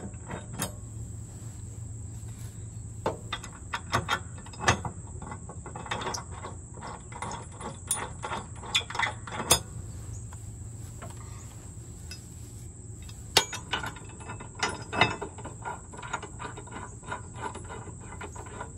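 Irregular metal clinks and clicks of mower blades and blade bolts being handled and started onto the spindles under a zero-turn mower deck, with a few sharper knocks. A steady high insect chirr runs behind.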